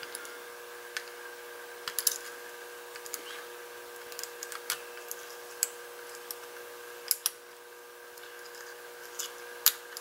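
Lock pick working inside the cylinder of a Master Lock M736 puck lock under light tension: faint, irregular small metallic clicks and ticks as the pins are picked, over a steady faint hum.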